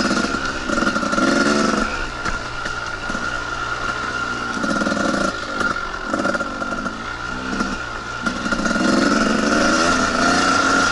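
Two-stroke dirt bike engine on the trail, rising and falling in pitch in repeated surges as the throttle is opened and closed, with short easings between them. A steady high whine runs underneath.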